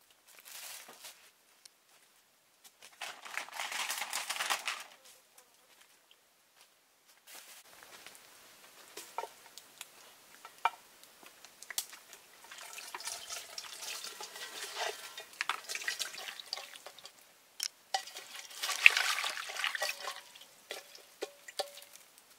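Water sloshing and pouring in short spells, with scattered small clicks and knocks of handling in between.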